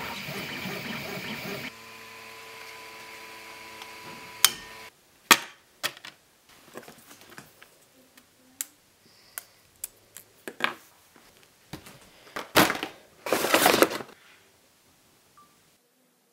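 Electronic music stops suddenly, and a 3D printer's stepper motors hum in steady tones for a few seconds. Then comes a run of sharp, irregular clicks and knocks of 3D-printed plastic parts and rubber bands being handled, with a longer rustling scrape near the end.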